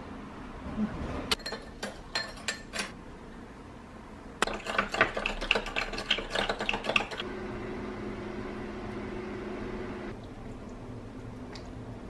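A metal spoon clinking against a small glass bowl: a few taps, then a quick run of clinks while a chili-ketchup dipping sauce is stirred. The clinks are followed by a steady low hum that lasts about three seconds.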